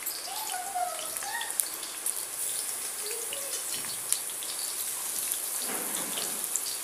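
Coconut oil sizzling and crackling in a kadhai over low heat, with freshly added coarsely ground amla and leaves frying in it: a steady hiss with scattered small pops.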